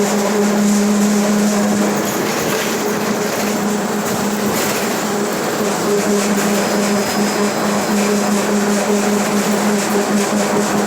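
Mercedes-Benz OF 1721 BlueTec 5 city bus under way, its rear differential giving a steady droning whine over the road and running noise. The whine fades out about two seconds in and comes back strongly a few seconds later.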